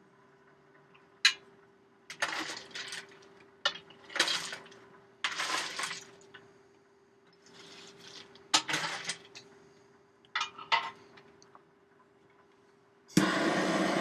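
Sharp metallic clinks and short scraping rustles around a freshly lit forge fire, over a steady hum from a small fan blowing on the fire. About thirteen seconds in, a loud steady mechanical whir starts abruptly.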